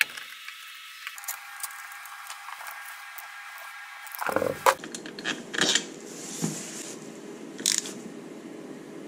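Hand tools clicking and scraping on a motorcycle engine's aluminium crankcase as its bolts are run in and snugged by feel, with a few sharp metal clicks in the second half.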